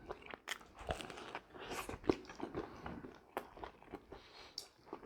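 A person biting and chewing crispy food, a run of small, sharp crunches.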